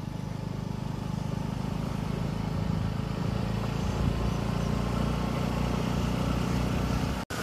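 Car engine and road rumble from a car being driven, a steady low drone that grows a little louder over the first few seconds, with a brief dropout near the end.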